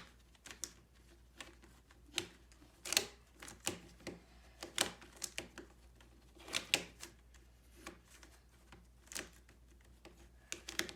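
Plastic 3x3 Rubik's Cube being turned one-handed: irregular clicks and short clacking runs as the layers snap round, with pauses between turn sequences.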